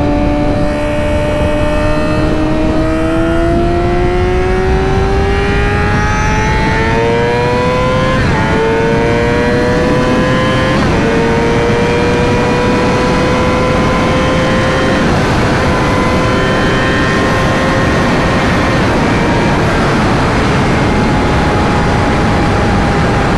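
Sportbike engine pulling steadily up in pitch, with two short drops at about eight and eleven seconds as it shifts up, then holding an even pitch at cruise. Wind rushes over the helmet microphone throughout.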